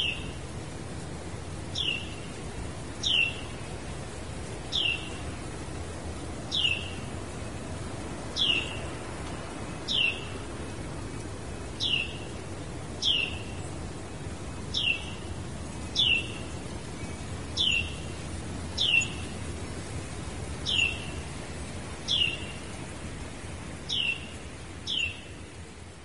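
Carolina wren calling: a single short, downward-sliding note repeated about every one to two seconds, over a steady low background hiss.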